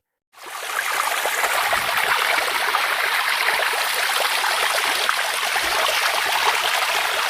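Fast-flowing floodwater rushing steadily, fading in just after the start.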